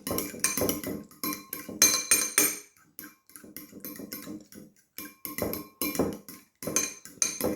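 A fork beating raw eggs on a ceramic plate: rapid clicking and clinking of metal on china in quick runs, with brief pauses, the plate ringing with each stroke.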